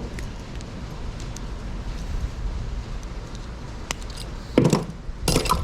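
Wire cutters snipping the ends of twisted clamp wire: a sharp click about four seconds in, then two louder snips near the end, over low handling noise.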